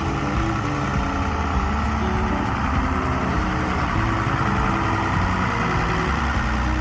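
An engine running steadily, most likely the tractor moving the tote baskets, under background music with shifting melodic notes.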